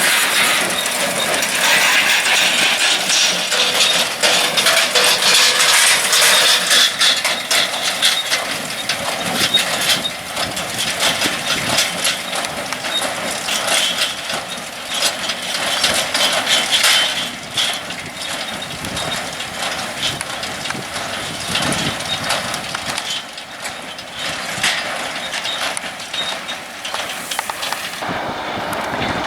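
Tractor engine running, with scattered rattles and knocks from farm machinery.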